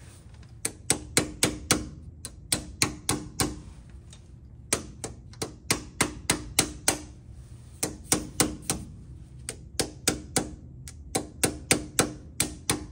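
Hammer tapping on the old axle seal laid over a new rear axle seal, driving the new seal into the axle housing of a 2007 Toyota 4Runner. Quick runs of sharp metallic taps, about four a second, in groups of four to nine with short pauses between, each tap with a light ring.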